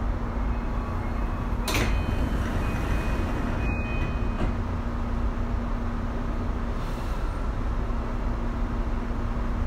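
Tokyu 2020 series commuter train heard from inside as it comes into a station: a steady low rumble and hum, with a sharp burst about two seconds in and a brief high steady tone just after it.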